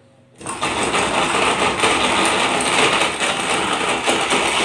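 Cosmos countertop blender switched on about half a second in and running steadily, chopping chunks of frozen chicken breast with garlic and ice cubes.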